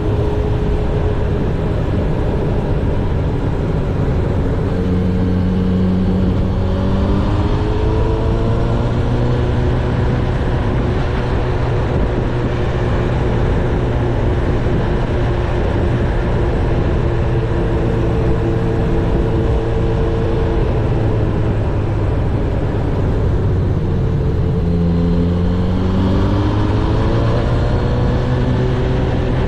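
Honda CB1000R's inline-four engine running while the bike is ridden, under steady riding noise. The engine note climbs in pitch twice as it accelerates, about a quarter of the way in and again near the end.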